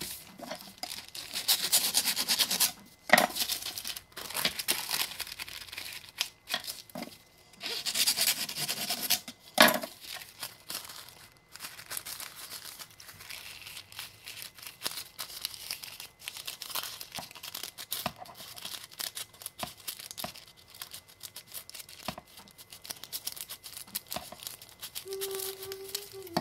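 Sheets of white paper being torn and crumpled by hand: two longer rips, each ending in a sharp snap, then lighter crinkling and rustling.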